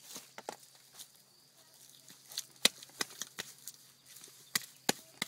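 Bare hands pressing and patting wet earth-and-straw mix onto a small cob retaining wall, with irregular crackles and a few sharp clicks.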